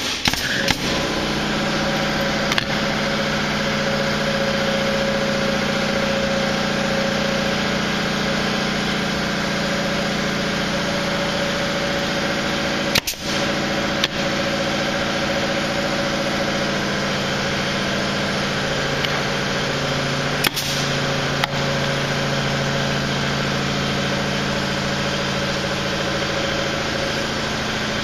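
A machine motor starts abruptly and runs steadily with a constant hum, its pitch settling slightly over time. A few sharp clicks stand out, a pair about 13 seconds in and another pair about 20 seconds in.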